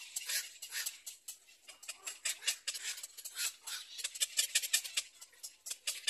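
Black-crowned night heron nestlings calling from the nest: a fast, irregular run of short, dry clicking notes, several a second.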